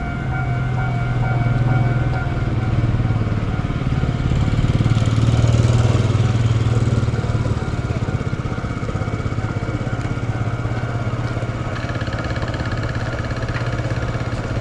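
A vehicle engine running steadily with a low, fast-pulsing hum. It grows louder for a few seconds near the middle, then settles back.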